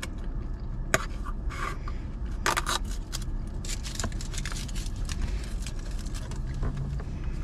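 A drinking straw being stripped of its wrapper and pushed down through the plastic lid of a milkshake cup: a run of crinkles, scrapes and sharp clicks, the loudest about a second in and around two and a half seconds in. Under it is a steady low hum inside the car.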